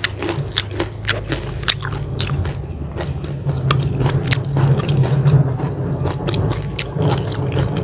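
Close-up eating sounds of a person chewing chicken noodles in balado chilli sauce: wet, irregular mouth clicks and smacks, with a low steady hum underneath.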